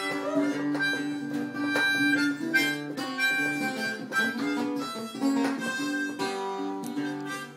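Harmonica playing a melody of held notes over strummed acoustic guitar, a live kitchen jam.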